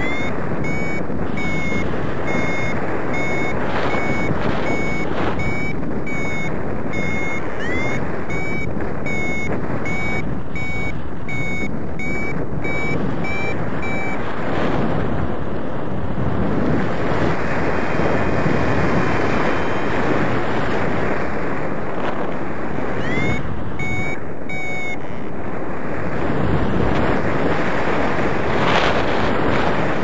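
Wind rushing over the microphone in flight, with a paraglider variometer giving short, high, evenly spaced beeps for much of the first half and again briefly about 23 seconds in. The beeping is the vario's climb tone, signalling that the glider is rising in lift.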